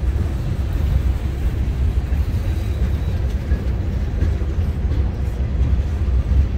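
Freight train cars (boxcars, then a loaded gondola) rolling past on the track, a steady low rumble of steel wheels on rail.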